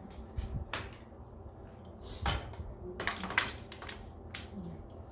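Parts of a clothes drying rack knocking and clinking as they are fitted together during assembly: a handful of short, sharp knocks, the loudest about two seconds in and again around three and a half seconds in.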